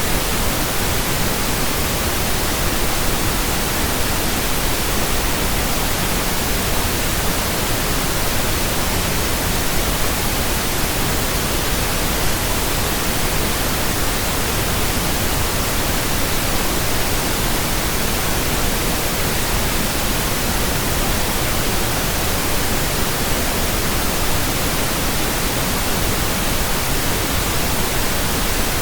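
Steady electronically generated pink noise: an even, unchanging hiss spread across all pitches, with no tones or breaks in it.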